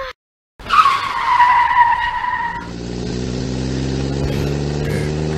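Car tyres screeching for about two seconds, a squeal sliding slightly down in pitch, then a car engine running steadily.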